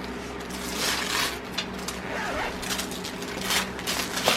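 Paper rustling and crinkling in short irregular bursts as gift wrapping is handled, over a low steady hum.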